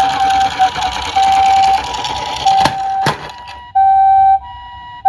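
Toy ambulance's electronic two-tone siren sounding the Japanese high-low "pee-poh" pattern over and over. Two sharp clicks come about halfway through, and a rough noise underneath drops away soon after, leaving the siren tones clean.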